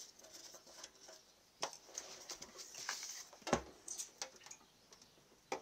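Scattered light clicks and knocks of tools and hands handling a small engine while its oil is being drained, one firmer knock about three and a half seconds in.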